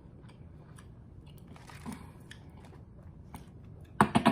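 A person chewing a barbecue chicken wing close to the microphone: quiet mouth sounds with small clicks, then a few sharp, loud clicks near the end.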